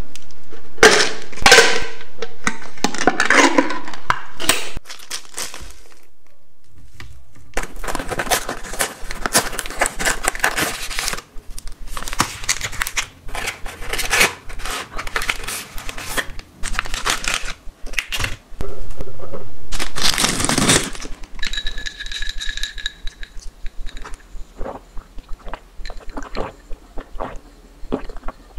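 Close-up sounds of snack packaging being opened and handled: a clear plastic tub of nuts opened, and plastic wrappers crinkling and tearing in repeated bursts. One long, loud rip about twenty seconds in, then lighter clicks and taps.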